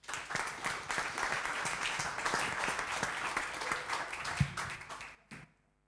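Audience applauding for about five seconds, then stopping, with a last clap near the end. A single dull thump sounds about four seconds in.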